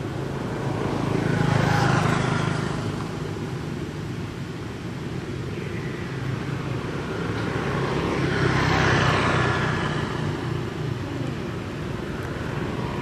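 Two road vehicles passing, one about two seconds in and another near nine seconds, each swelling up and fading away over a steady low rumble.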